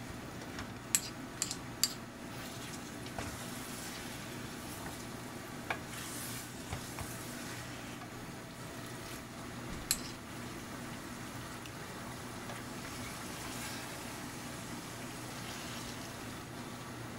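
Biryani cooking in a pot: a steady sizzle and hiss with a low hum underneath, and a metal utensil knocking sharply against the pot a few times, three quick knocks about a second in and another near the middle.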